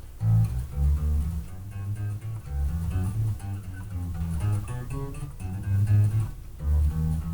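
Electric bass guitar played through a bass cabinet, a run of single plucked notes in a finger warm-up exercise.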